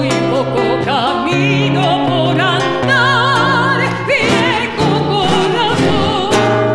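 A woman singing a slow Argentine folk song with wide vibrato, accompanied by acoustic guitar, holding a long note near the end.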